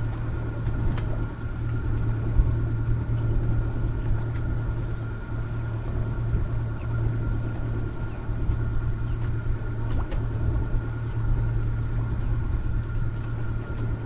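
Boat engine running steadily at low trolling speed: an even low hum with a thin, steady whine above it.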